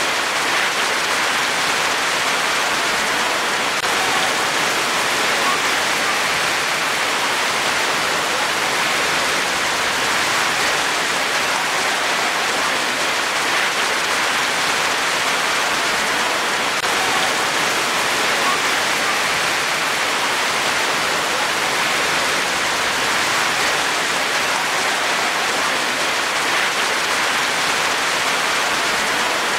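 Rain falling steadily, an even hiss with no single drops or changes standing out.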